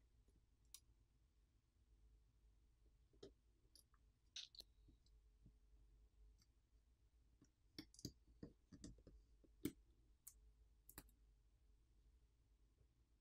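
Faint, scattered clicks and taps of small repair tools against a smartphone's parts as it is being disassembled, with a quick run of them about eight to eleven seconds in.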